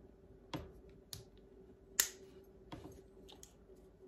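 Red aluminum rifle bipod being handled: five short, sharp clicks and taps as its legs are folded together and the mechanism is worked. The loudest click comes about two seconds in.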